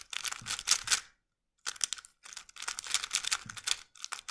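Plastic 3x3 speedcube being turned quickly through an H perm: rapid clicking and clacking of the layers in two runs, with a short pause about a second in.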